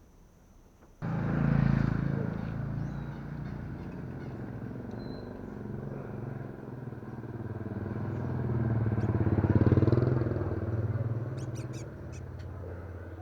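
An engine starts being heard abruptly about a second in and runs steadily, swelling louder toward about ten seconds in and then easing off.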